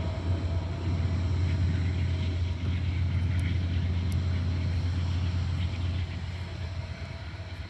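Distant diesel locomotive on a Union Pacific coal train, a steady low engine drone as the trailing unit pulls away. It grows fainter about six seconds in.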